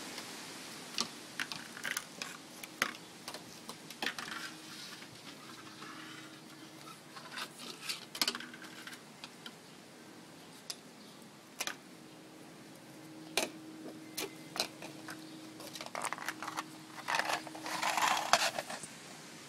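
Border Collie puppy playing with a plastic toy on a wooden deck: scattered sharp clicks and taps of claws and toy on the boards, with bouts of rustling and scraping. Near the end a longer, louder scuffle of rustling right at the microphone as the puppy comes up close.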